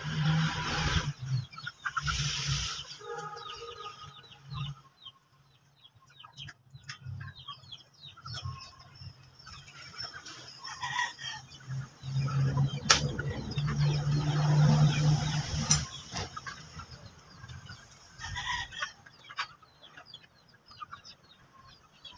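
Chickens clucking with a rooster crowing, a louder stretch of calling about halfway through, with scattered clicks and rattles of wire being handled on the cage.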